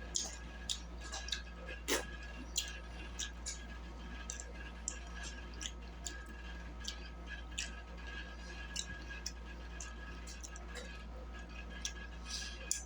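Close-miked mouth sounds of eating fried catfish: soft, irregular wet smacks and clicks of chewing and lip-smacking, about one or two a second, over a steady low hum.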